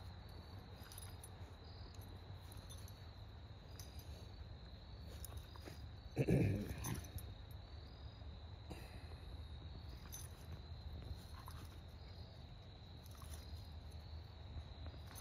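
Insects chirping steadily in a pulsing, high-pitched pattern. About six seconds in there is one brief loud sound, followed by a smaller one just after.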